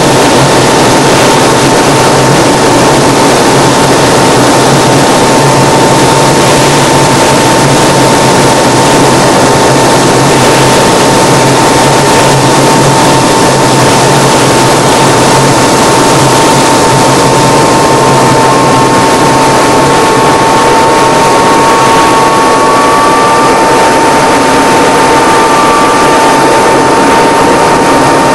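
Piston engine and propeller of a single-engine aerobatic plane, heard loud from inside the cockpit as a steady drone of engine and air noise with a constant whine. A second, slightly higher whine wavers in for several seconds about two-thirds of the way through.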